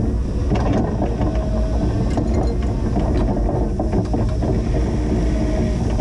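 Linde H20 EVO forklift running steadily while plowing snow, with repeated clanks and rattles over the steady engine sound.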